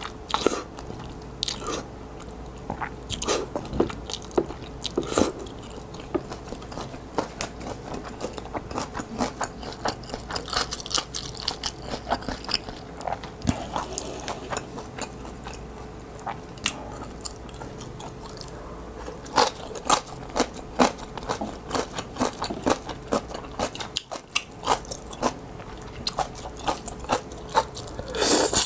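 Close-miked eating of spicy instant ramen noodles: wet chewing with many short smacking clicks. Noodles are slurped at the start, and a loud slurp begins at the very end. A faint steady hum sits underneath.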